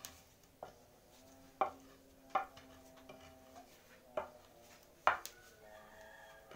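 Long wooden pestle pounding a flour-based fish-bait mixture in a stone mortar: dull thuds, about seven, unevenly spaced around a second apart, with two in quick succession about five seconds in.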